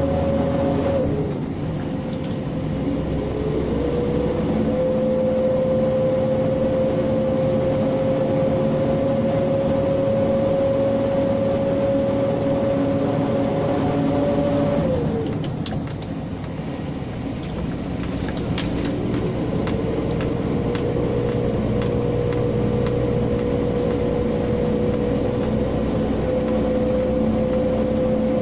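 Scania G460 truck's six-cylinder diesel engine running under load, heard from inside the cab, with a steady whining tone over its rumble. Twice, about a second in and again near the middle, the pitch and level drop as the driver changes gear, then the engine pulls and the tone climbs back up.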